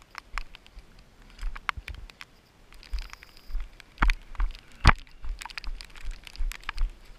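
Running footsteps on a wet, rocky mountain trail: dull thumps about two to three a second, mixed with sharp clicks and crunches as feet strike stone and gravel.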